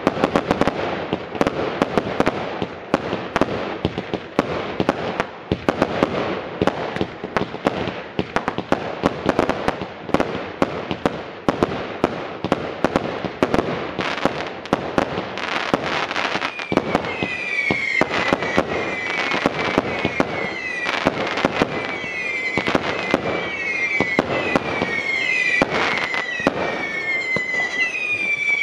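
Consumer firework cakes (multi-shot tube batteries) firing in rapid succession: a dense stream of shots and crackling bursts. From about halfway through, short falling whistles join in, one after another.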